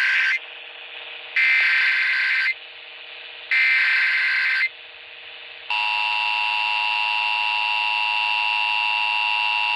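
Emergency Alert System tones from a broadcast receiver: three one-second bursts of SAME digital header data, a harsh warbling screech, then about six seconds in the steady two-tone EAS attention signal. This sequence opens an EAS alert, here a Required Monthly Test.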